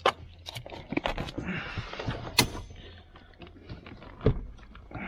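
Irregular clicks, knocks and rustling from hands working the wiring harness and plastic connectors under a car seat, with a couple of sharper knocks about two and a half and four seconds in.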